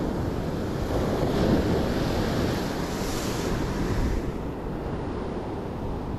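Sea surf surging and washing against the shore, with wind buffeting the microphone. A wave swells up about a second in and its wash hisses for a couple of seconds before easing off.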